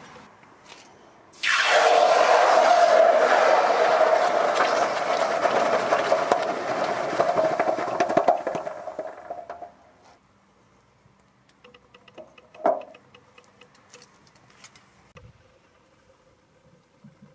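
Hot copper ingot quenched in a dish of water: a sudden loud hissing sizzle with crackling that holds for about eight seconds and then dies away. Later comes a single short knock.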